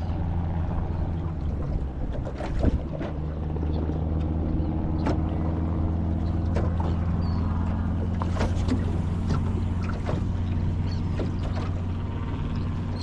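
A boat's motor running steadily at low revs, a constant hum, with a few sharp knocks and clicks over it, the loudest about two and a half seconds in.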